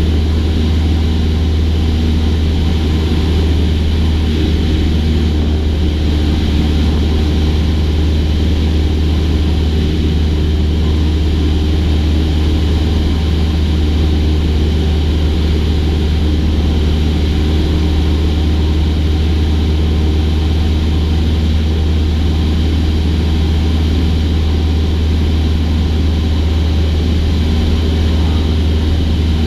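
Cessna 172's piston engine and propeller running at a steady, unchanging power: a loud, low, constant drone.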